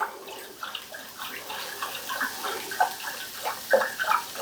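Liquid pouring and splashing steadily into a stock pot: broth being added to heat for gravy.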